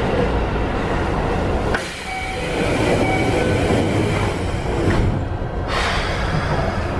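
Running noise of a Keikyu 1500 series electric commuter train, heard from inside the passenger car: a steady rumble of wheels on the rails. The loudness dips briefly about two seconds in, and a few short, faint high tones follow.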